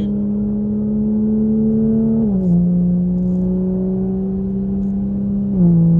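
Car engine under acceleration, heard from inside the cabin. Its pitch climbs slowly in each gear and drops sharply at two upshifts, about two seconds in and again near the end.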